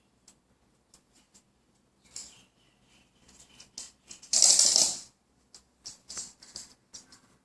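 A toy poodle's claws clicking and scrabbling on a hard surface as it paws about, with a louder scraping rasp lasting under a second about four and a half seconds in.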